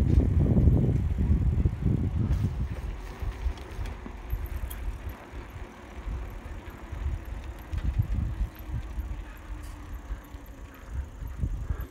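Bicycle ride on a concrete path: wind buffeting the microphone and the rolling of the tyres make an uneven low rumble. It is loudest in the first couple of seconds and then eases.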